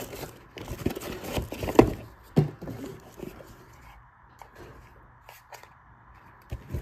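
Hands unpacking a cordless tool battery from its cardboard box: a few knocks and scrapes of cardboard and hard plastic in the first couple of seconds, the loudest about two seconds in, then only light handling clicks.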